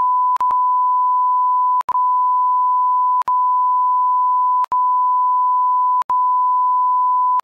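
A steady 1 kHz censor bleep tone, held continuously. It is broken by short clicks and dropouts about every one and a half seconds.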